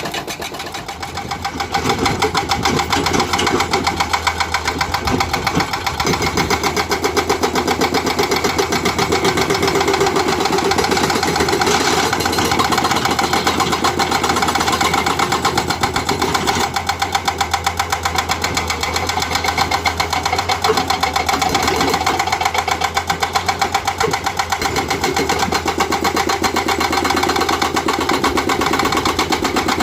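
Hydraulic breaker on an excavator hammering rock in rapid, steady blows, over the running diesel engine.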